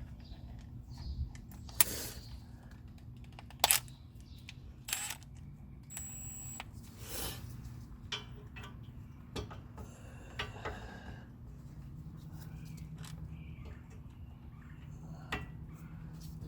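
Scattered sharp metallic clicks and clinks of a socket and universal joint being fitted together and onto a brake caliper bracket bolt, over a low steady hum.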